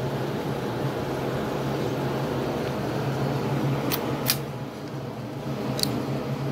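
A few sharp metallic clicks from a .22 LR rifle being handled and readied: two about four seconds in and one near six seconds. A steady low mechanical hum runs underneath.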